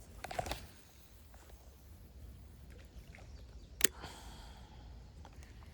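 Spinning-rod cast: a brief swish about half a second in, then a sharp click a little before four seconds followed by a short fading hiss.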